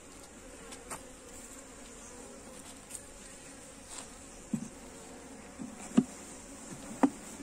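Honeybees buzzing over the open frames of a small hive, a steady hum. A few short knocks and clicks from handling the hive break in, the sharpest about six seconds in.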